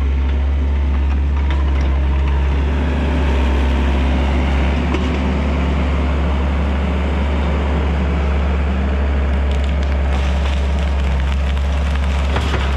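Takeuchi TL130 compact track loader's diesel engine running steadily and loud, working through brush and small trees, with a few sharp cracks near the end.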